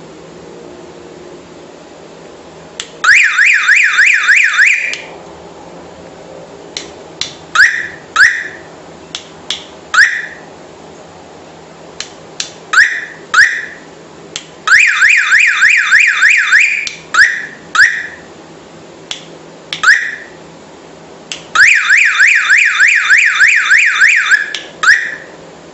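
Homemade PIC16F676 car alarm's electronic siren sounding: three bursts of rapid, repeated rising chirps, each burst lasting two to three seconds, with single chirps and short clicks between the bursts.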